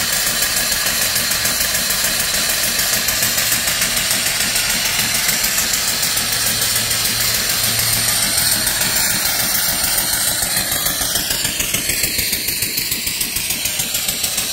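Single-cylinder vertical steam engine with a 3-inch bore and 4-inch stroke, running steadily on boiler steam. Its exhaust beats in a fast, even rhythm over a continuous hiss of venting steam.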